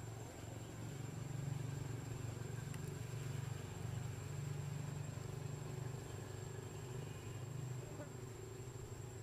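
Steady background ambience: a continuous low rumble with a thin, unbroken high-pitched whine over it.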